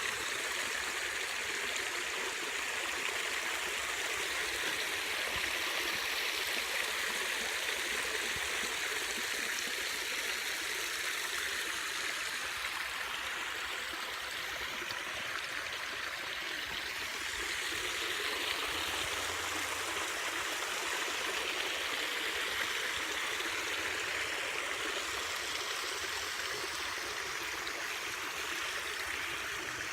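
Rain-swollen stream of running water, a steady, even rushing and trickling that keeps up throughout.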